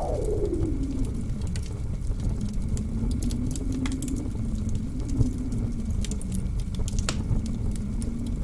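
Blizzard wind howling over a low rumble, its pitch falling from a high whistle at the start to a low, wavering howl, with a wood fire crackling in scattered sharp pops, the loudest about four and seven seconds in.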